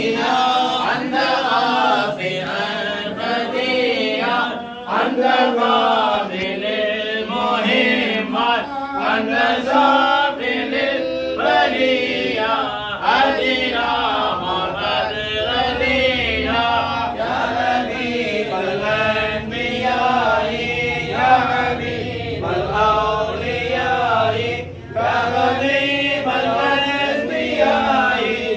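Group of voices chanting a mawlid recitation together, a continuous melodic chant with short breaks about five and twenty-five seconds in.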